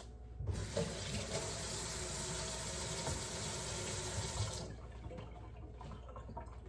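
Kitchen tap running into the sink for about four seconds as hands are rinsed under it. It comes on about half a second in and is shut off abruptly just before the five-second mark.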